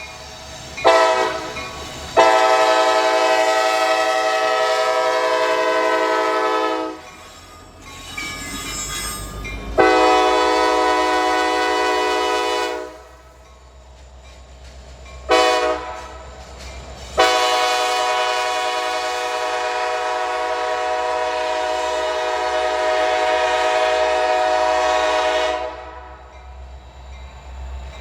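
A CSX SD70MAC locomotive sounding its air horn, a chord of several tones. There is a brief toot, then two long blasts, a short one and a final long one of about eight seconds: the long-long-short-long pattern of a grade-crossing signal. The locomotive rumbles underneath between blasts.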